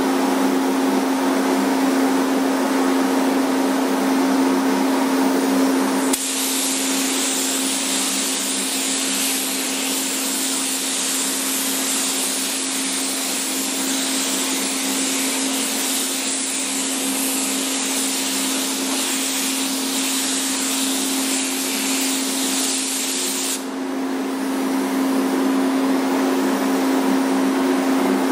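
Spray gun hissing steadily as paint is sprayed onto the car's body moldings, starting abruptly about six seconds in and cutting off sharply about seventeen seconds later. Under it runs a steady machine hum with a low tone, typical of a paint booth's exhaust fan.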